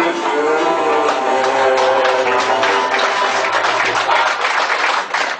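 Live Algerian folk music played by a small ensemble: plucked string instruments in a fast, dense instrumental passage with sharp hand-drum strokes, and no singing.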